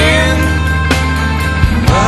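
Rock music playing, an instrumental stretch of a heavy rock song with drum hits and no vocals.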